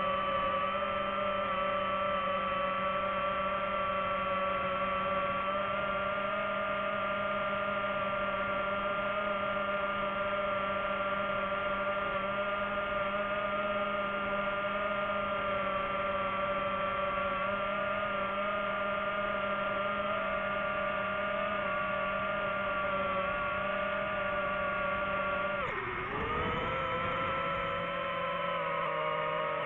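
DJI FPV drone's motors and propellers whining at a steady pitch; near the end the pitch dips sharply and then climbs back up.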